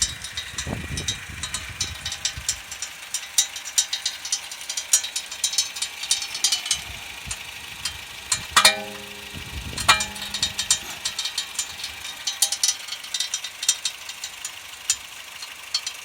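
Irregular light clicking and rattling from a Honda Freed's running gear, the abnormal suspension noise that the owner wonders may come from a stone caught there. A short pitched squeak sounds a little past halfway.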